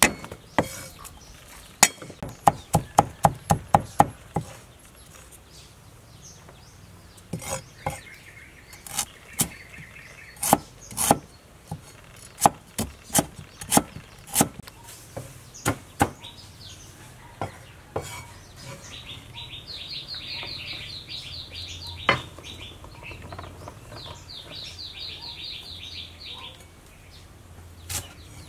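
Cleaver chopping garlic and galangal on a wooden chopping block: a quick run of sharp knocks about two seconds in, then slower, spaced strikes. A bird's rapid, repeated chirping comes in several times in the middle and near the end.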